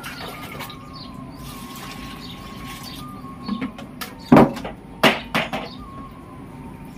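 A few sharp knocks and clatters, from a plastic bucket and mug while potted plants are watered, about four to five seconds in, over a steady low hum.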